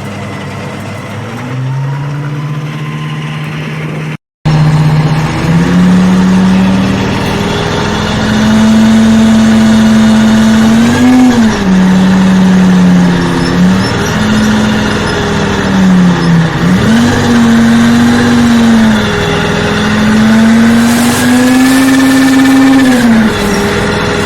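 Armoured personnel carrier's engine running loud, its note rising and dipping several times as the revs change. The sound cuts out briefly about four seconds in, then comes back louder.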